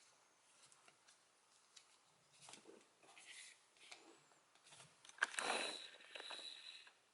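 Faint handling noise from a small plastic toy key: scattered light clicks and rustling, with a short louder rustle about five seconds in.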